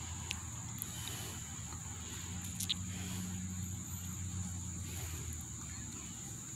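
Outdoor background sound: a constant high-pitched whine over a low hum that swells for a few seconds in the middle, with a few brief clicks.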